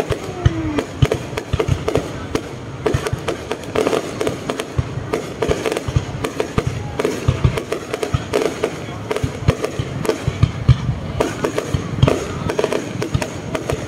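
Aerial fireworks display: a dense, irregular run of bangs and crackles as shells launch and burst overhead.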